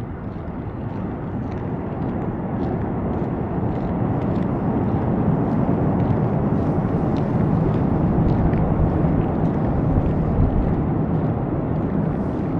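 Low rumble of a passing vehicle that swells slowly over several seconds and eases off near the end.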